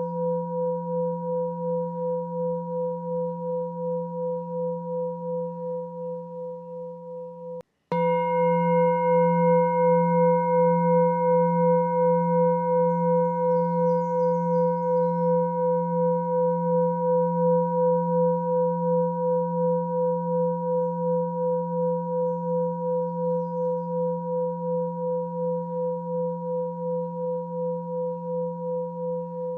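Singing bowl ringing in a sustained, slowly wavering tone. It fades, cuts out for a moment about eight seconds in, then comes back struck, with bright high overtones that die away, and rings on, slowly fading toward the end.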